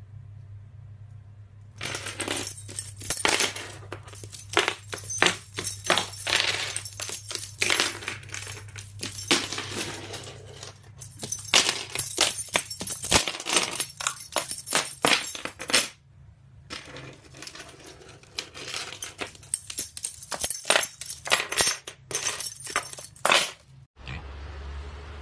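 Rapid, irregular clattering taps and metallic clinks as a white-bellied caique scurries and hops over a hardwood floor among loose keys, pausing briefly twice and stopping near the end.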